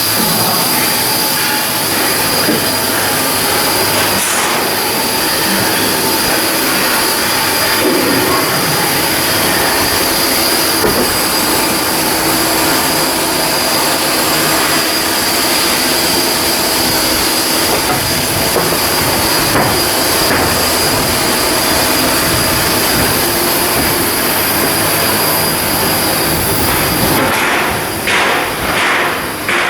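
Loud, steady shipyard work noise: a constant hiss of metalworking machinery with high, steady whining tones on top. Near the end it breaks into short, uneven surges.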